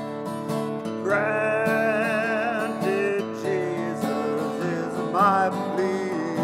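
Hymn with a strummed acoustic guitar accompaniment. About a second in, a held melody line with wavering vibrato comes in over it, with a quick upward slide near the end.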